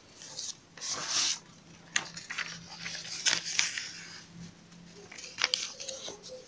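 Paper rustling as notebook pages are turned and pressed flat by hand, with several sharp crackles of the paper.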